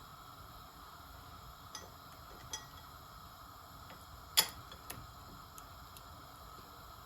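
A metal spoon clinking against the cooking pan a few times while the gravy is stirred, one sharp knock about four seconds in the loudest, over a faint steady hiss of the gravy simmering as it thickens.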